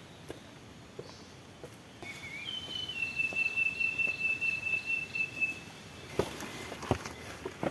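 Footsteps on a hillside trail, with a few louder steps near the end. A high, steady call is held for about three seconds in the middle.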